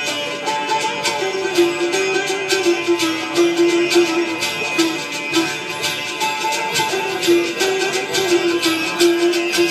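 Instrumental interlude of Pothwari folk music: a held, stepping melody with plucked strings over fast, steady percussion strokes.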